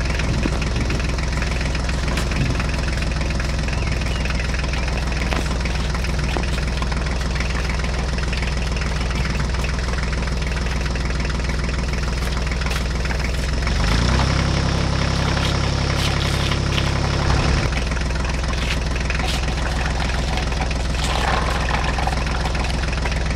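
Tractor engine running steadily at idle. From about 14 to 17.5 seconds in, a stronger, higher engine note rises over it, then drops back.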